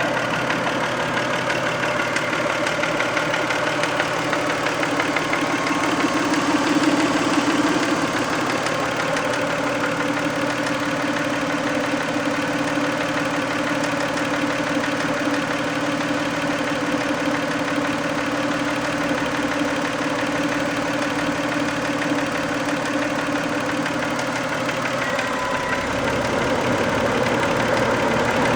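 Toyota 2VZ-FE 2.5-litre V6 in a 1990 Camry, running steadily at idle.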